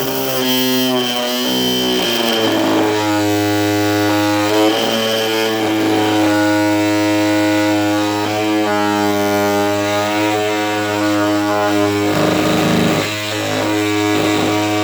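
Ryobi oscillating multi-tool running steadily with a loud, even buzz while its general-purpose metal, wood and plastic blade cuts through a floorboard nail; the tone shifts about two seconds in and dips briefly about twelve seconds in as the load changes.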